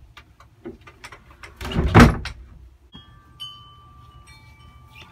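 A wooden coop door swinging shut with a loud bang about two seconds in, after a few small clicks of handling.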